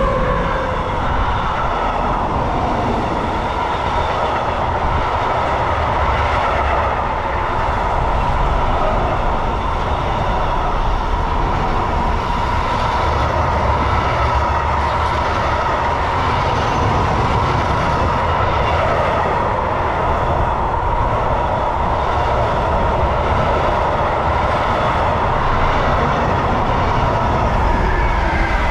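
Train running past on the line: a long, steady rumble of wheels on the rails with a steady hum above it.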